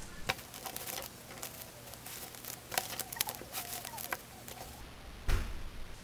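Paper microwave popcorn bag crinkling and rustling as its corners are folded, with scattered sharp clicks of paper and handling. A thump near the end.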